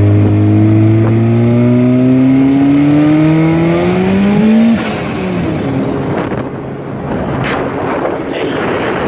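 Turbocharged car engine accelerating, its pitch rising steadily for about four and a half seconds before it drops off abruptly, as at a lift-off or gear change. After that, wind rushes and buffets over a microphone held outside the moving car.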